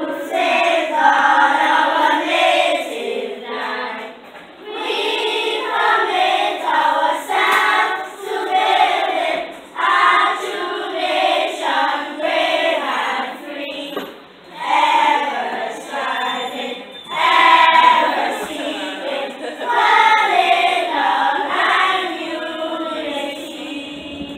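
A children's choir singing together in phrases, with short breaks between them.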